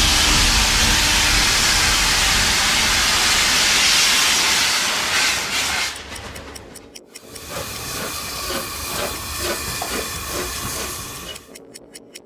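Steam locomotive, the LNER Flying Scotsman, blowing off steam with a loud, steady hiss that dies away about six seconds in. A quieter, uneven stretch follows, and near the end a fast, regular ticking begins.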